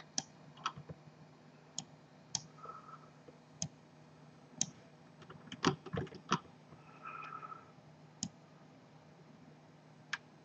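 Computer mouse and keyboard clicking irregularly, about a dozen separate clicks.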